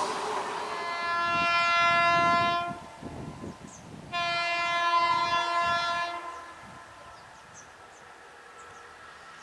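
Indian Railways electric train horn sounding two long blasts of about two seconds each, a second and a half apart, over the rumble of the running train. The train noise dies down soon after the second blast.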